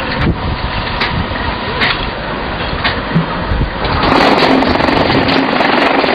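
A QT4-26 block making machine: metal clanks as its lever and mould are worked, then about four seconds in its vibration motor starts and runs with a loud, steady hum.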